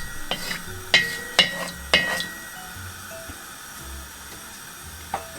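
A few sharp metallic clinks of a utensil against a cooking pot, four within the first two seconds and one more near the end, over faint background music.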